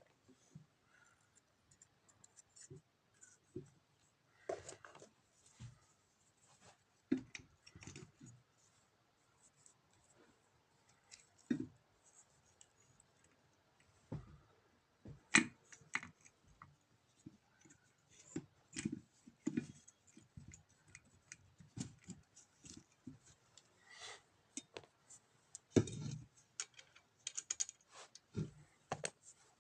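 Faint, irregular clicks and light knocks of small metal parts and hand tools being handled during starter motor repair work. The loudest clicks come about halfway through and again near the end.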